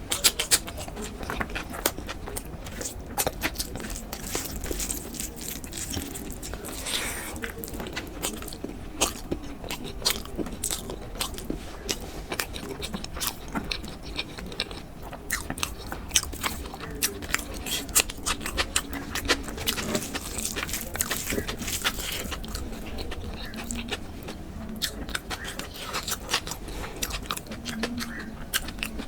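Close-miked eating sounds: chewing and biting, with many quick, irregular wet clicks and smacks of the mouth.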